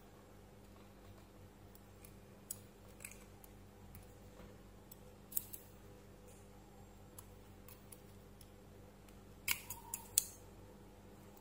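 Light metallic clicks and taps as a thin metal tool works among the steel planetary gears inside the plastic gearbox housing of an Ingco cordless drill. The clicks are scattered singly, with a quick run of louder clicks about nine and a half seconds in.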